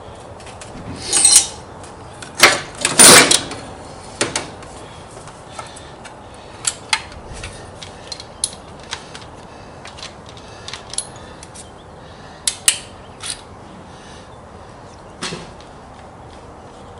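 Irregular clinks and knocks of metal parts and hand tools being handled on a lathe carriage, with a short cluster of louder knocks a few seconds in and a few sharper clicks later.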